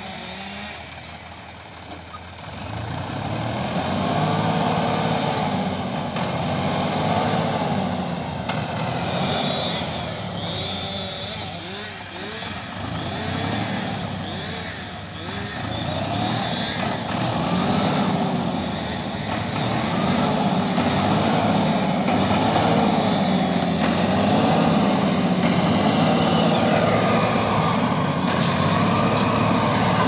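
Diesel tractor engine working, its speed rising and falling again and again as the tractor moves over rough ground. It grows louder about two seconds in.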